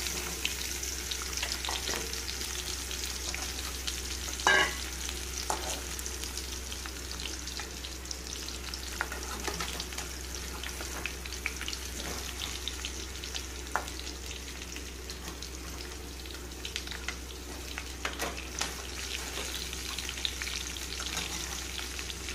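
Raw plantain slices frying in hot oil in a metal kadai: a steady sizzle, broken by a metal spatula scraping and clicking against the pan, with one loud knock about four and a half seconds in.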